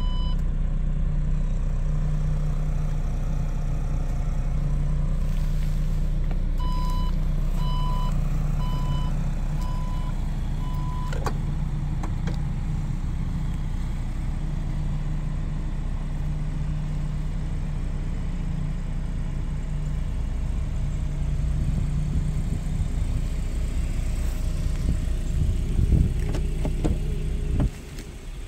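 Car running steadily with a low hum. A few seconds in, parking-sensor beeps sound in a quick even run for about four seconds. Near the end come a few clicks, then the running sound drops off suddenly.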